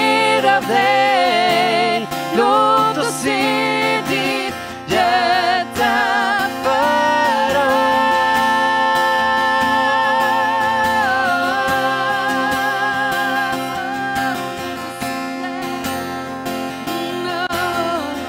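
Worship song: a singer holds long notes with vibrato over acoustic guitar. The longest note is held from about seven seconds in to eleven, and near the end the voice eases off and the guitar carries on.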